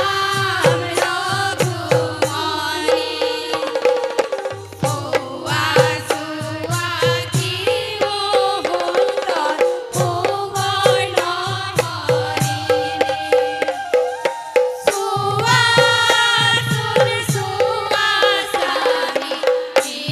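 Assamese dihanam devotional song: a women's group singing together with hand-played barrel drums keeping a fast beat and a bamboo flute. The drums drop out briefly between phrases, around 4, 10 and 15 seconds in.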